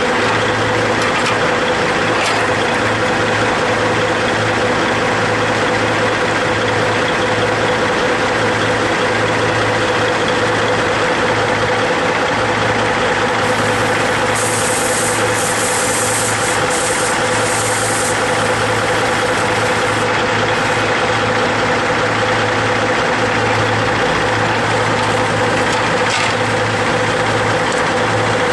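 Log truck's diesel engine running steadily, an even drone with a constant hum.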